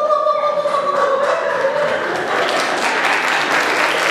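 A held musical note fades out in the first second or so, then audience applause starts about two seconds in and carries on steadily.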